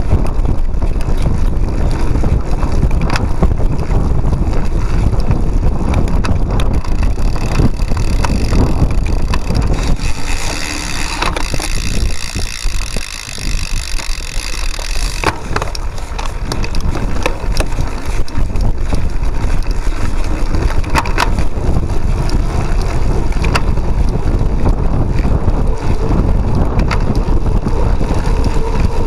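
Cyclocross bike ridden fast over grass and rough dirt, heard from a handlebar-mounted camera: a steady rumble of wind on the microphone and the bike rattling over the bumps, with scattered sharp clicks. For a few seconds around the middle the rumble eases and a higher hiss takes over.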